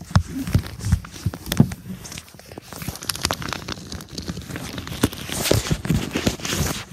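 Clothes rustling close to the microphone with irregular knocks and thumps as someone pushes in among hanging clothes in a closet.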